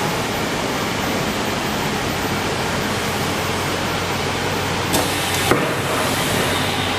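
Steady hum and hiss of a moving-head tarpaulin PVC welding machine running, with a sharp click about five seconds in.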